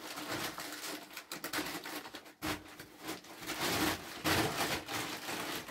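A plastic sheet rustling and crinkling as it is handled and smoothed down, with small irregular crackles.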